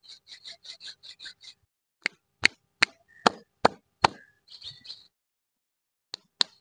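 Fingers tapping on plastic-wrapped lollipops: a quick run of light taps, then about six sharp taps a little under half a second apart. A short crinkle of the wrapper follows, and a few more sharp taps come near the end.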